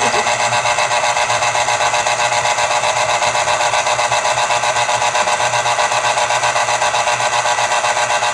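Black & Decker electric citrus juicer's motor running steadily, spinning its reamer, with a fast even pulsing in its hum.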